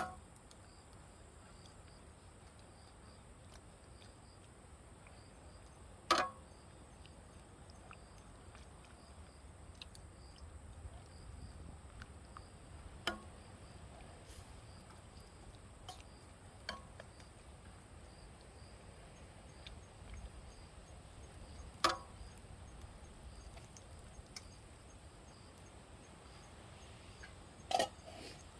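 Steady high-pitched trilling of insects such as crickets, with a short sharp click or snap every few seconds, five times in all.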